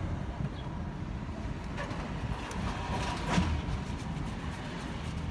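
Steady low outdoor rumble like distant traffic, with a brief sharper noise about three seconds in.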